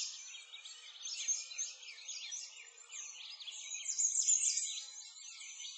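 Dense chorus of many small birds chirping and twittering in quick, high-pitched calls, with a louder stretch about four seconds in.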